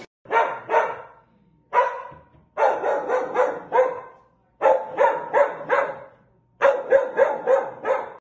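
A dog barking in quick volleys at a window washer outside the glass: a couple of barks, a single one, then three runs of about five barks each with short pauses between.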